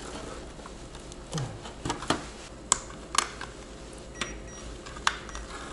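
Sharp plastic clicks and knocks from a power-supply tester and its connectors being handled and pushed onto a PC power supply's cable plugs, about seven separate clicks spread over a few seconds. A faint short high beep sounds about four seconds in.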